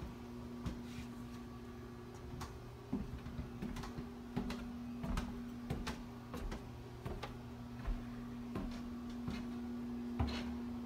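Footsteps knocking on a wooden boardwalk at a slow walking pace, about three steps every two seconds, over a steady low hum.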